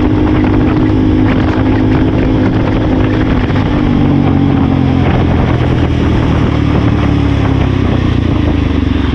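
KTM 390 Adventure's single-cylinder engine running on the move, heard from the bike itself; the engine note drops to a lower pitch about four seconds in.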